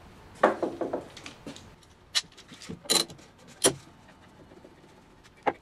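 Steel bar clamps being handled and set: sliding jaws and bars clicking and clanking against each other and the wood in a series of short, sharp metallic knocks, with a last knock near the end.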